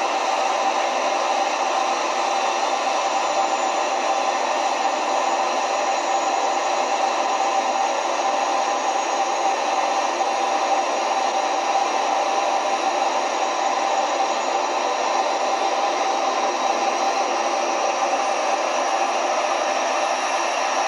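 Small scratch-built gas turbine engine on a model truck running steadily, a loud hair-dryer-like rush with a steady whine through it. A faint high whine creeps slowly upward in the last few seconds.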